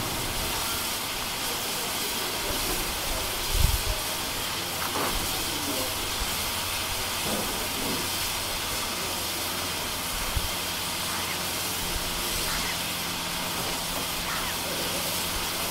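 Steam hissing steadily from around the cylinders of a standing SR Schools Class 4-4-0 steam locomotive. There is one brief low thump a few seconds in.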